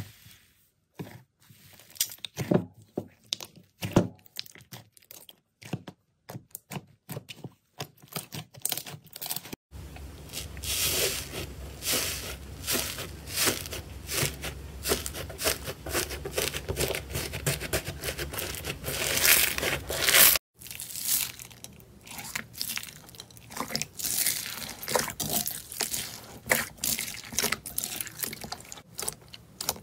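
Hands squeezing, pulling and tearing slime, making crackling, tearing and wet squishing sounds. The sound changes abruptly twice as a different slime is handled: sparse crackles at first, a dense, louder crackling through the middle as a crusted green slime is torn open, then sparser squishing near the end.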